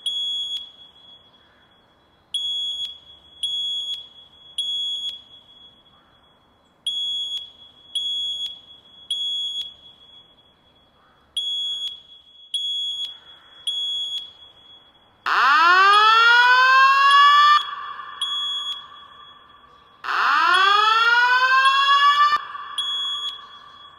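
Fire alarm sounding a temporal-three evacuation pattern: groups of three short high-pitched beeps with a pause after each group. About fifteen seconds in, it switches to a rising 'whoop' tone that sweeps up over about two seconds, sounds twice, and leaves a steady tone between the sweeps.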